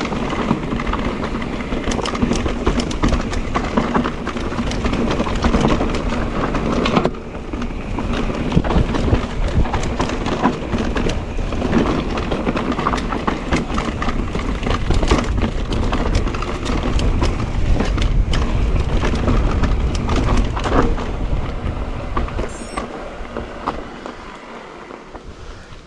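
Mondraker Crafty electric mountain bike ridden over rough trail: a constant rush of wind and tyre noise, with frequent sharp knocks and rattles from the bike and stones. The sound fades out over the last few seconds.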